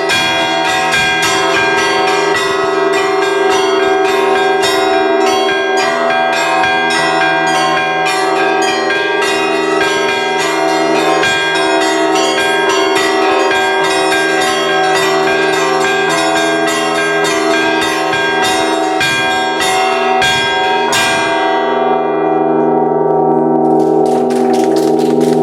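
Russian Orthodox church bells rung by hand: a fast, dense run of strokes on the small bells over the humming ring of the larger bells. About twenty seconds in, the quick strokes stop and the bells ring on, then a few light strokes start again near the end.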